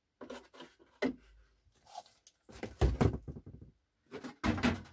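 Handling noise as a hard plastic RC model van body is lifted off its chassis and the parts are set down on a cardboard box: a run of knocks, rattles and rustles, with the heaviest thumps about three seconds in and again near the end.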